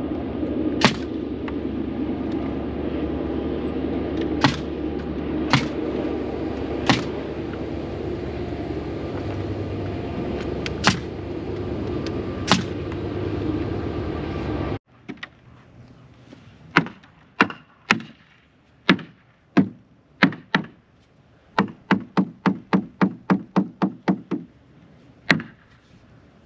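Pneumatic nail gun firing nails into 2x4 wall framing, one sharp shot every second or two, over a steady air-compressor hum. About halfway the hum stops abruptly, and later a fast run of about a dozen sharp strikes comes at roughly four a second.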